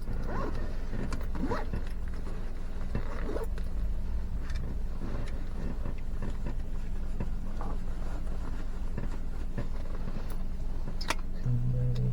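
Steady engine and road noise of a road vehicle on the move, with a short, low-pitched horn honk near the end.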